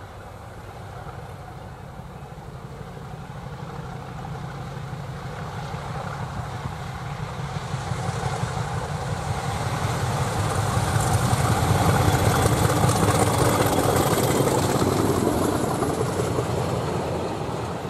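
Diesel locomotive under power hauling a freight train. Its engine grows steadily louder as it approaches and peaks as it passes close, about twelve seconds in. The wagons then roll past.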